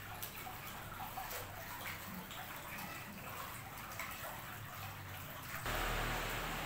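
Faint background noise with a few scattered light ticks; about five and a half seconds in, a louder steady rushing hiss sets in.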